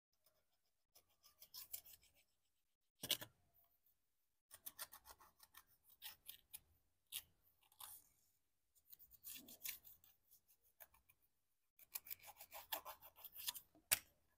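Faint scraping of a wooden stick across a scratch-art card, scratching off the black coating in quick runs of short strokes with brief pauses between them.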